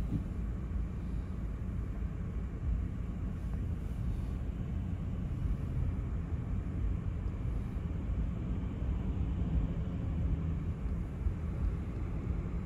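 Steady low rumble of a car and the surrounding road traffic, heard from inside the car's cabin while it waits at a junction.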